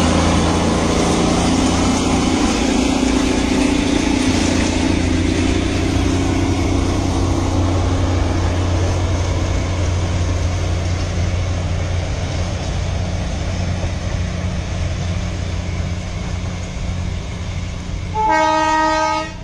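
Steady low engine rumble of a narrow-gauge Darjeeling Himalayan Railway toy train running along the line, slowly fading. Near the end comes a single horn blast about a second long.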